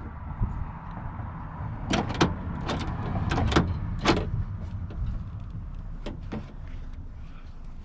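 Rear half-door latch of a 2001 Ford F-250 Super Duty clicking and clacking as the handle is worked, the re-attached latch cable now releasing the latch. A quick run of sharp clicks comes between about two and four seconds in, then two more a couple of seconds later, over a low steady rumble.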